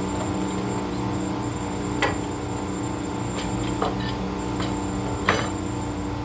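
An engine running steadily, with a few sharp metal knocks over it, like a tool striking metal, about five in all, the loudest about two seconds in and near the end.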